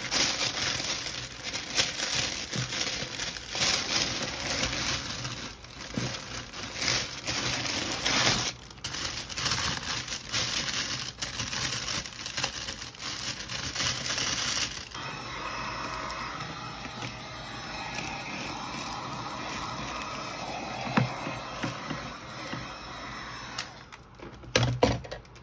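Clear cellophane gift wrap crinkling and rustling as it is folded and gathered by hand around a gift basket. About fifteen seconds in, the crinkling gives way to a softer, steadier sound.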